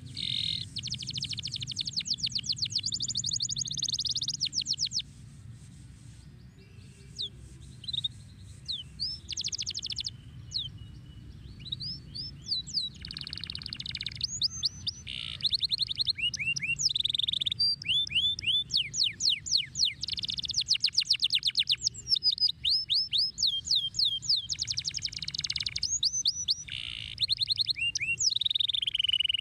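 Domestic canary singing a long song of fast trills: rapid runs of repeated chirps and down-slurred whistled notes, broken by short pauses. A steady low hum runs underneath.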